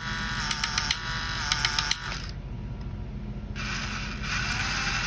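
Cannon-sound mechanism of a Radio Shack R/C Sherman tank: a small electric motor drives a gear and hammer that raps on a drum, giving quick bursts of clicks about once a second over the motor's buzz. The clicking stops about two seconds in, and near the end a steadier motor whir takes over.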